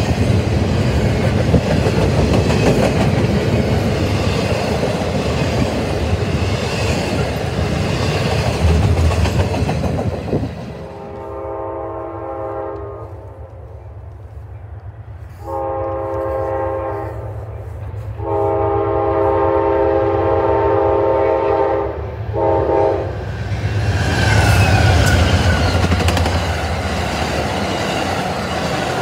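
Double-stack intermodal freight cars rolling past with steady rail noise, which cuts off abruptly about ten seconds in. Then an Amtrak locomotive horn sounds four blasts as the train approaches, the last one short. The passenger cars then pass close by with wheels clicking over the rail joints.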